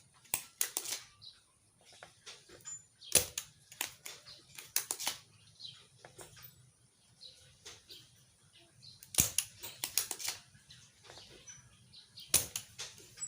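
Several clusters of sharp clicks and clatters from hand tools worked on the amplifier's circuit board while the driver transistors are being taken out.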